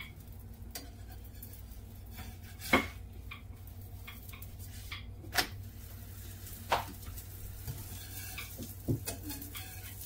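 Kitchen utensils knocking and clinking against pots and dishes: a few sharp, separate knocks, the loudest about three seconds in, over a steady low hum.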